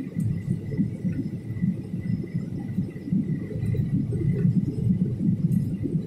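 Jet airliner cabin noise on descent: a steady low rumble of engines and airflow heard inside the cabin, with a faint steady high whine above it.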